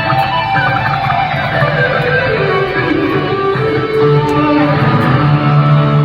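Electric guitar played through a PA during a band's sound check, with a run of notes falling in pitch about two seconds in over a steady low note.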